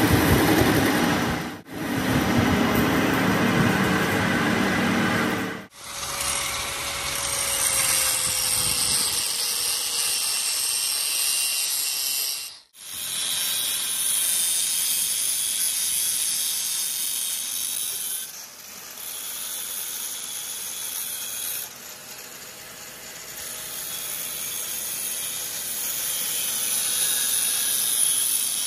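A metal lathe turning a steel tie-rod ball pin for the first few seconds. Then an angle grinder's disc grinds the spinning ball with a steady high hiss, resizing the worn ball.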